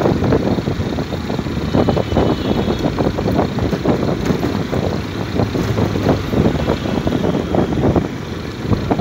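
Travel noise from a moving vehicle: an engine and tyres on the road, with wind buffeting the microphone in irregular gusts.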